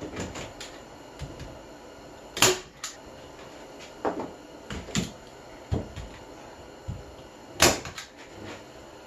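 Wooden knocks and clunks of cat-tree parts being handled and set in place, irregular, with two sharp, loud knocks: one about two and a half seconds in and one near the end.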